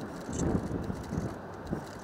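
Fireworks heard from far off as a series of dull low thumps, the loudest about half a second in, over a steady low rumble.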